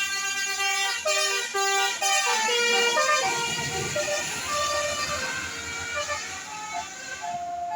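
Bus telolet horn, a set of musical air horns, playing a tune of short stepped notes in several pitches. The noise of the bus rises under the horn in the middle.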